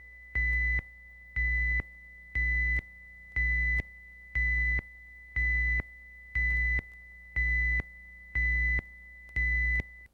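Videotape leader countdown beeps following a production slate: about ten short tones, evenly spaced one a second, that stop just before the programme starts.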